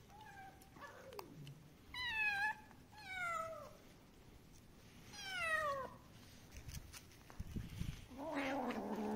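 Stray kittens meowing for food as they are fed a squeeze-tube cat treat. After a faint first call come three loud meows that drop in pitch, at about two, three and five seconds in, then a lower, longer meow near the end.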